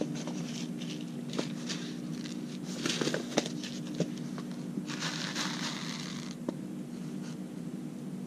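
Paper seed packet being handled and opened, crinkling and rustling, loudest about three seconds in and again around five to six seconds in, with light taps and clicks as radish seeds are shaken out into a palm. A steady low hum sits underneath.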